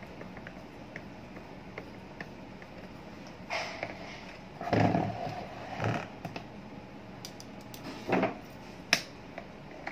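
Long steel screwdriver knocking and scraping against the plastic pivot hub and housing of a desk fan, a few separate clunks with a sharp click near the end.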